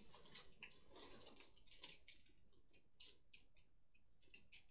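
Faint, irregular clicking of small plastic parts being handled, a few clicks a second.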